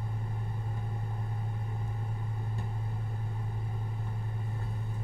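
Steady electrical hum: a strong low tone with many evenly spaced overtones, unchanging throughout.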